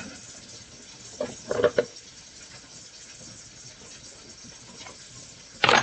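Fresh spinach cooking in olive oil in a pan: a steady soft sizzle, with a few short knocks and scrapes of a kitchen utensil about one and a half seconds in and a louder knock near the end.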